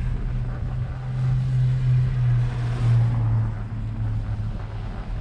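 Steady low rumble of wind and riding noise on a bicycle-mounted camera as the bike rolls over a snow-covered sidewalk, swelling for about two seconds starting about a second in.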